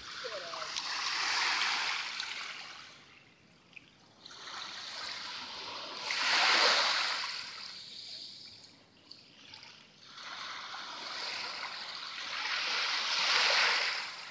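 Small waves lapping onto a sandy beach, a hissing wash that swells and fades every few seconds.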